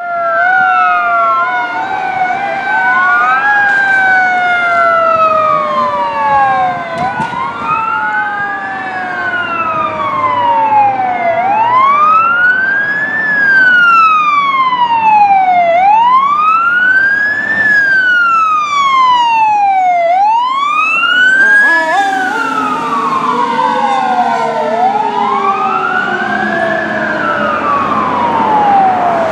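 2006 Pierce Enforcer fire engine responding with its siren on a wail, rising and falling about every four and a half seconds as the engine approaches and pulls away. A second, lower siren tone slides slowly down near the start and again in the last several seconds.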